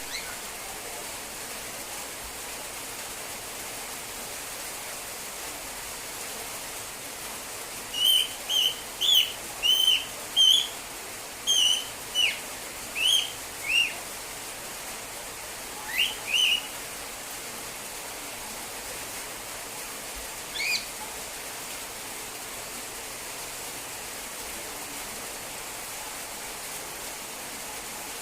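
A cockatiel calling while left alone: a run of about ten short, shrill, up-and-down contact calls, then two more, then one last call, over a steady hiss.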